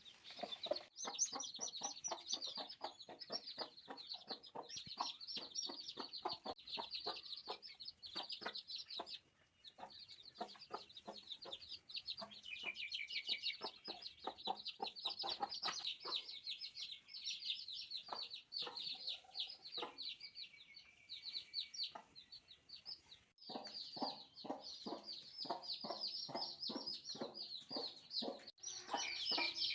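Newborn chicks peeping continuously: a dense chorus of short, high, rapidly repeated peeps, pausing briefly twice.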